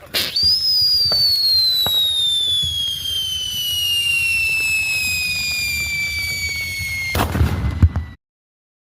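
A firework sets off with a sharp pop and a shrill whistle that slides steadily down in pitch for about seven seconds. Near the end it gives way to a loud, crackling burst of bangs that cuts off suddenly.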